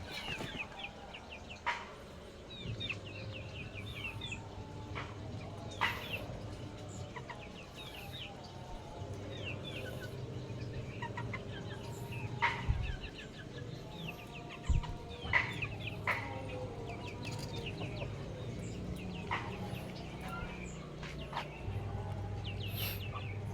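Young chicks peeping: many short, high, falling peeps in quick clusters, with a few sharp clicks or taps in between.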